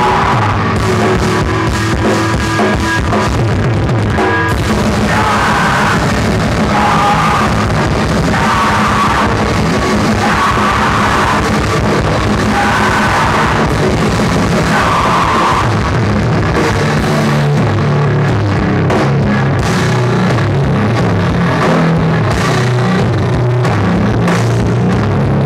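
Live rock band playing loud, heavy music with a drum kit, electric guitar and saxophone.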